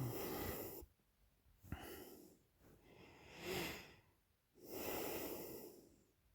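A sleeping woman's heavy open-mouth breathing: about four noisy breaths with short pauses between them, one starting sharply about two seconds in.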